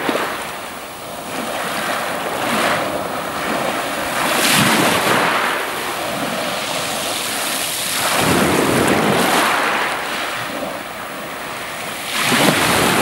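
Small waves breaking and washing up a pebble beach, the wash swelling and falling back every few seconds.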